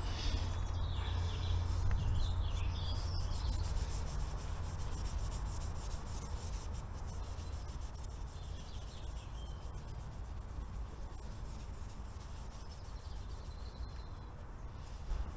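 Steady hand rubbing on a Royal Enfield Classic 350's alloy engine casing as it is polished.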